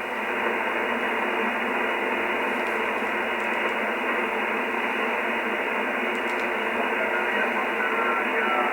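Shortwave SDR receiver's audio on a single-sideband voice channel: a steady hiss of band static with no voice, the idle aeronautical HF frequency between transmissions.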